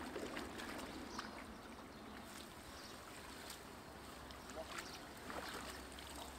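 Faint splashing and dripping of shallow muddy water as men wade and lift a mosquito net out of it.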